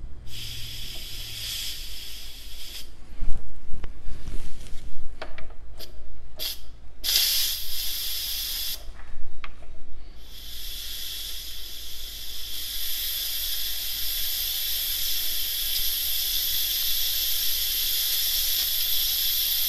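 Instant Pot electric pressure cooker venting steam through its lid's pressure-release valve, opened by hand for a manual quick release of pressure. The hiss starts and stops, with a few knocks from the valve being handled, then from about halfway becomes a steady strong hiss.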